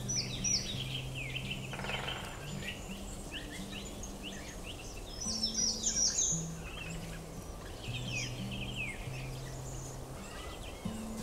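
Small songbirds chirping and singing in groups of quick falling notes, over soft background music of low held notes that change pitch every second or so.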